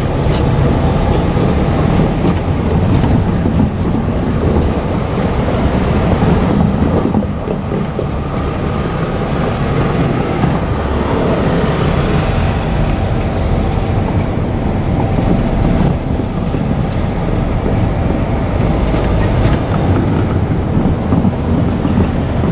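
JR Kyushu KiHa 47 diesel railcars running on the track: a steady, loud rumble of diesel engines and wheels on rail.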